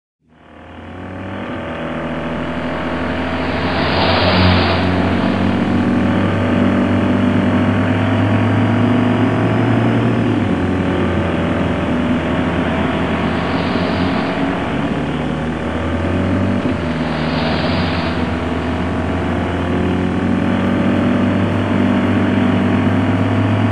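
Mini hatchback driving at speed, heard from inside the cabin: steady engine drone and road noise, fading in over the first second or two. The engine note shifts in pitch a few times, and three louder rushes of noise come about 4, 14 and 17 seconds in.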